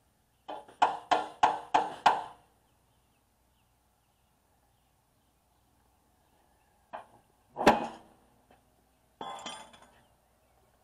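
A hammer striking the steel of a flail mower: about six quick, ringing blows in a row about half a second in, then two more metallic knocks near the middle, the second the loudest, and a short rattle toward the end.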